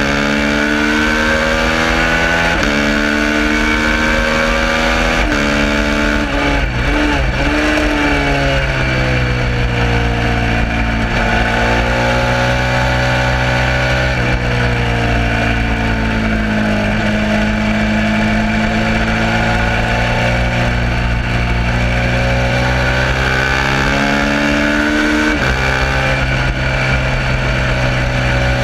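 Suzuki SV650 V-twin race bike engine at speed, pulling up through the gears with two quick upshifts, then a rapid run of downshifts with throttle blips. It holds a long, slowly swelling pitch through a corner and climbs to another upshift near the end, over steady wind rush.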